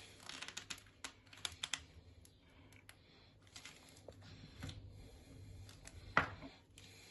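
Scattered light clicks and taps of a wood-filler tub and a putty knife being handled, with one louder knock about six seconds in.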